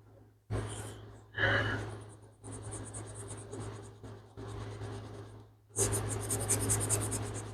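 An ink pad rubbing over paper cardstock to age it with antique linen ink, in about five scraping strokes of roughly a second each. A steady low hum runs underneath.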